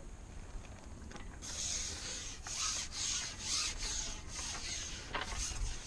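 Repeated rasping rubs, roughly two a second, starting about a second and a half in: a carbon fishing pole sliding back through the hands and over its roller while a hooked carp is being played.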